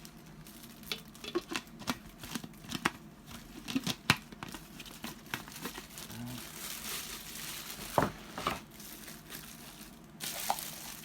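Blender parts and their packaging being handled and unwrapped: scattered rustles and sharp clicks, denser rustling for a few seconds past the middle, and louder knocks about four and eight seconds in.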